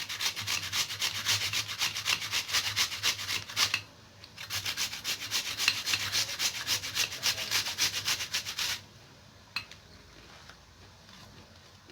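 Peeled turnip grated on the fine side of a hand grater: rapid rasping strokes, with a brief pause about four seconds in, stopping about nine seconds in.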